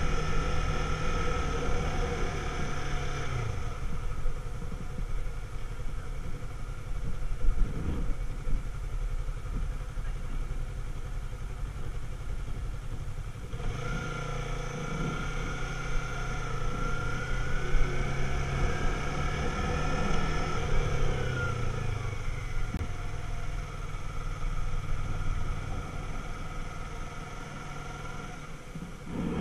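Motorcycle engine running at low speed in slow town traffic over a steady low rumble. Its note eases off for a while, then comes back abruptly about halfway through and rises and falls as the bike pulls along.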